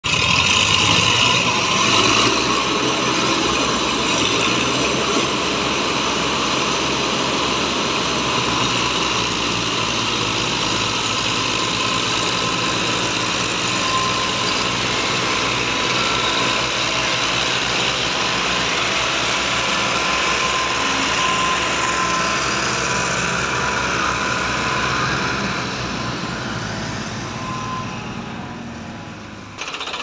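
Diesel tractor engines, a Farmtrac among them, running steadily under load while towing a heavily loaded trailer; the engine noise fades away over the last few seconds.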